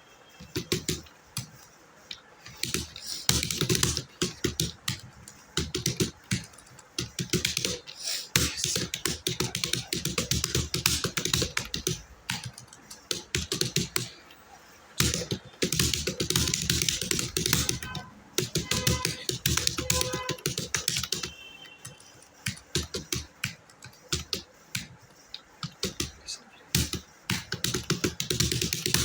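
Computer keyboard typed fast in a timed typing test, about 60 words a minute: rapid runs of key clicks broken by short pauses.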